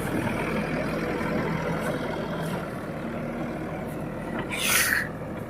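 Heavy diesel engine running steadily, with a short loud hiss about four and a half seconds in.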